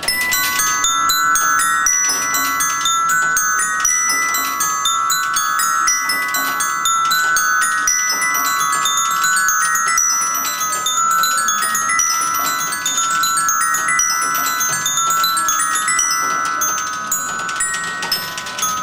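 Bearings Glocken, a mechanical instrument in which steel ball bearings strike tuned metal bars, playing a dense stream of bell-like notes, several strikes a second, whose ringing overlaps into held chords.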